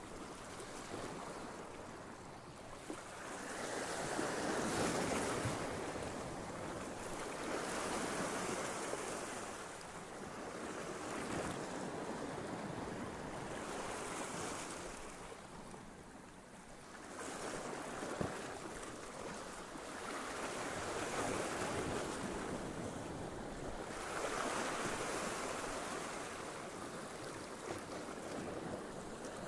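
Sea waves breaking and washing against shoreline rocks, swelling and fading in surges every three to four seconds.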